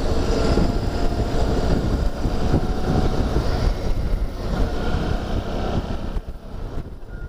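Wind buffeting the microphone of a camera mounted on a moving motorcycle at road speed, over the steady running of the motorcycle's engine. The noise falls away about six seconds in.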